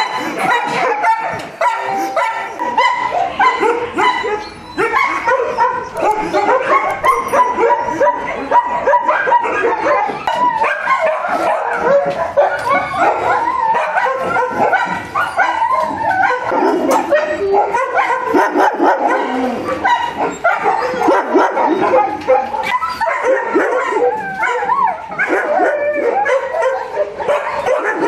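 Many shelter dogs in kennels barking at once, a constant din of overlapping barks with no break.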